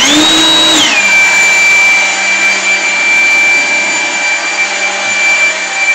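Einhell GP-LB 18/200 Li E cordless 18 V leaf blower, with its brushless motor and axial impeller, running with a high whine and rushing air. Right at the start it revs up to a higher pitch for just under a second, then drops back and runs steady.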